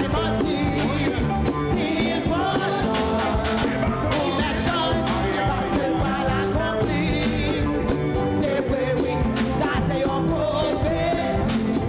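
Church worship band playing upbeat music with a steady drum beat, with singing over it.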